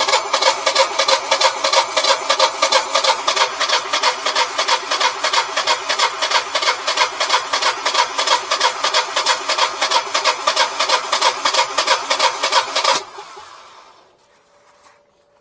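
Generac Guardian 4456 standby generator's starter cranking the engine in a fast, even rhythm for about 13 seconds without it catching, then cutting off. The owner puts the failure to start down to air in the fuel lines.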